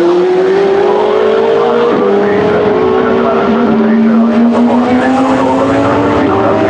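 Several endurance race car engines (Hypercars and GT3s) at full throttle, their pitch climbing as they accelerate, with a drop back in pitch at a gear change about two seconds in.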